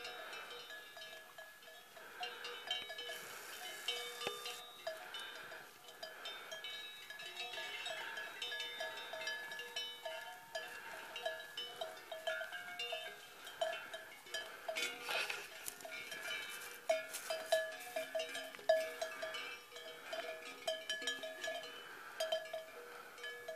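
Cowbells on grazing cattle clanking irregularly as the animals move and feed, short ringing strikes coming unevenly, several a second at times.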